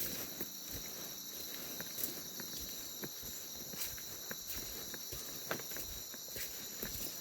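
Steady insect chorus of tropical rainforest, several high-pitched buzzing trills at different pitches held without a break, with irregular soft steps and rustles on the forest floor.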